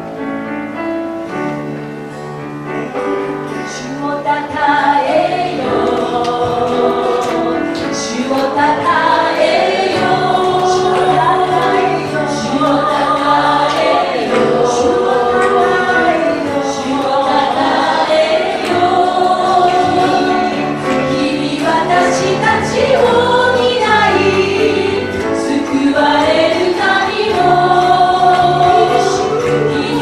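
Japanese contemporary worship song sung by a small group of women into microphones, with piano and guitar accompaniment. The voices come in about four seconds in, after a short piano lead-in.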